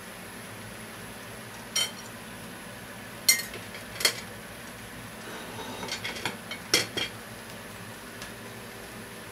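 Spaghetti and clams boiling in a metal frying pan with a steady bubbling hiss. Short, sharp clinks that ring briefly break in: one about two seconds in, two more around three and four seconds, and a quick run of them between six and seven seconds.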